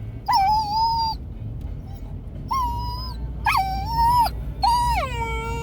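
Australian Shepherd puppy whining: four high-pitched whines, the last one longer and sliding down in pitch near the end.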